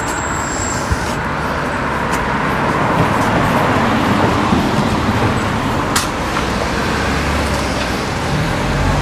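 Steady road traffic noise from passing cars, with a single sharp click about six seconds in.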